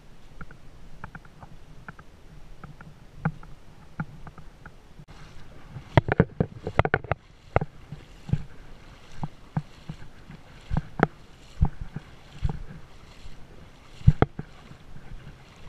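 Shallow sea water splashing and sloshing as someone wades through it, in irregular splashes roughly once a second over a steady water hiss. Before that, a quieter first five seconds of faint scattered ticks.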